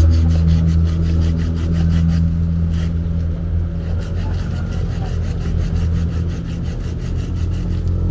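Hand pruning saw cutting through a green apple branch in quick, even back-and-forth strokes, over a steady low hum.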